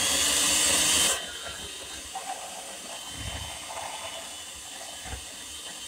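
Handheld electric mixer running in a bowl of muffin batter, loud for about the first second, then running on more quietly and steadily.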